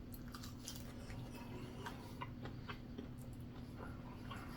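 Faint mouth sounds of someone chewing a bite of potato pierogi: soft, irregular small clicks and smacks over a steady low hum.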